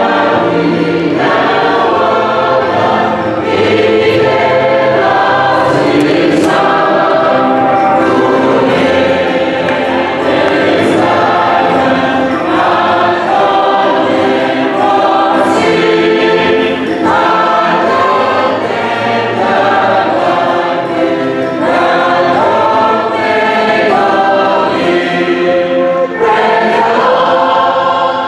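A church choir singing together, loud and continuous.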